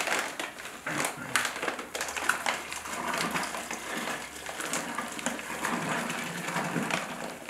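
Powdered thinset mortar pouring from a paper sack into a plastic bucket, with the paper sack crinkling and rustling in irregular crackles as it is tipped and shaken.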